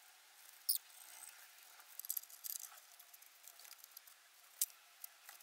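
A handful of faint metal clicks and taps from a ratchet and socket working the belt tensioner bracket being refitted to the engine. There is one near the start, a short cluster around the middle, and one near the end.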